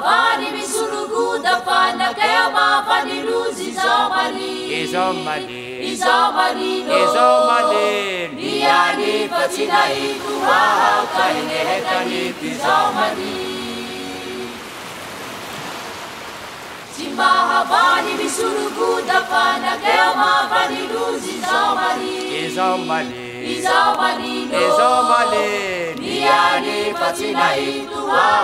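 Choral vocal music: several voices singing together, with a quieter stretch about halfway through before the singing comes back.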